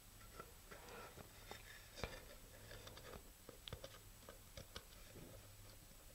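Faint scattered clicks and crackles of tape being picked at and peeled off the inside of a fiberglass coupler tube, with the tube handled in the hands.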